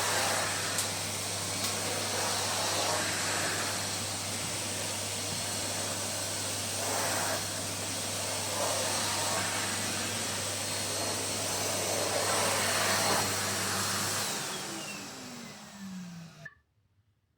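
Numatic tub vacuum cleaner running steadily, with brief surges in its rush as the floor head works. About 14 s in it is switched off, and the motor winds down with a falling whine until it stops.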